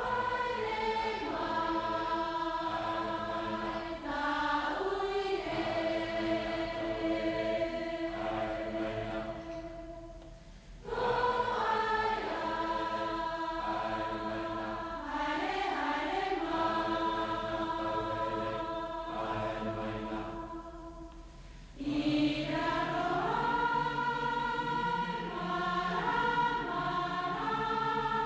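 A choir singing long held chords on a film soundtrack recording played back from reel-to-reel tape. It comes in three phrases, with a brief dip between them about ten and twenty-one seconds in.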